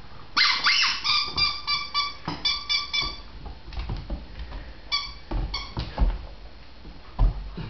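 A dog whimpering: a quick run of short, high-pitched whines in the first three seconds and a few more about five seconds in. A few dull thumps come in the second half.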